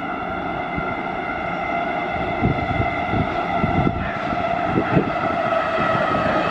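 Metro train pulling into an underground station: a steady high whine of several tones over a rumble with a few knocks, growing slowly louder as it approaches.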